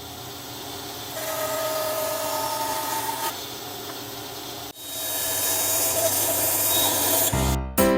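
A power tool running on wood: a steady hiss with a motor whine, which jumps louder about five seconds in. Music comes in near the end.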